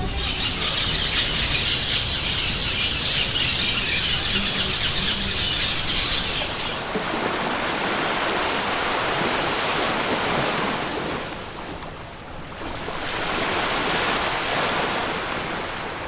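A shrill, squealing chorus of birds for about the first seven seconds. It gives way to a rushing wash of noise that swells, dips about twelve seconds in, and swells again, as of surf breaking.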